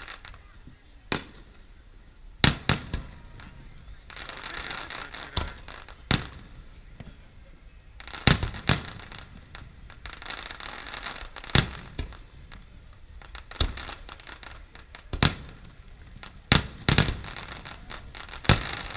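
Aerial firework shells bursting overhead: over a dozen sharp bangs at irregular intervals, some coming in quick pairs.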